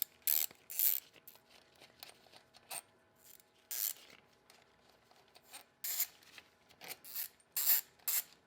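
A 3.5 mm Allen bit working out the cap screws of a manual locking hub: a series of short, irregular metal scraping and rasping strokes with quiet gaps between them.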